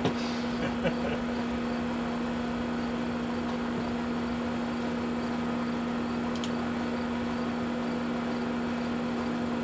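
Air conditioner unit running: a steady hum with a constant low tone and an even hiss, unchanging throughout.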